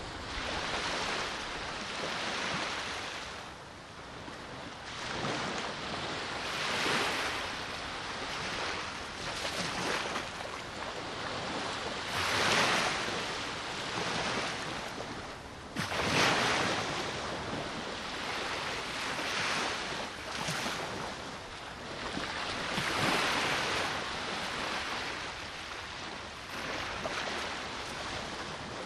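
Sea waves breaking and washing ashore, swelling and fading every few seconds, with a strong wind blowing.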